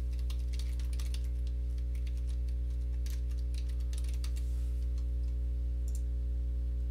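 Computer keyboard typing: a run of light, quick key clicks over about the first four and a half seconds, then a single click near the end. A steady low hum runs beneath it and is the loudest sound.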